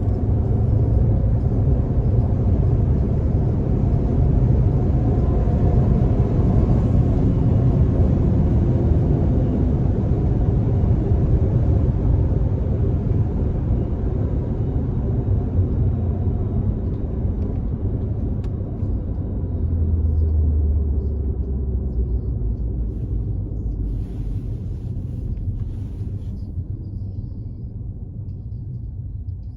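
Turbocharged Volkswagen Jetta running at cruising speed, a steady low rumble of engine and road noise. Over the last several seconds it eases off and grows quieter.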